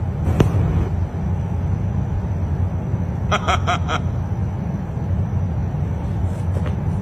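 Steady low rumble of background noise, broken about three seconds in by four short high-pitched sounds in quick succession.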